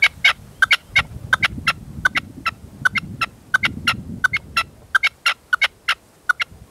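Male red-legged partridge calling from a decoy cage: a rapid run of sharp, repeated calls, about four to five a second in short clusters, stopping near the end. Gusty wind rumbles on the microphone underneath.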